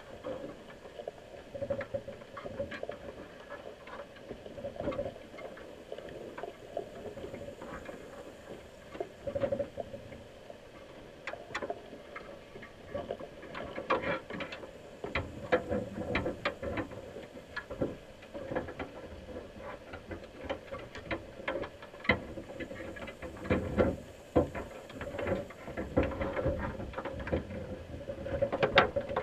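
Underwater inside a crab pot: irregular clicking and tapping as crabs' shells and claws knock against the plastic bait cups and wire mesh, growing busier partway through, over a steady low hum.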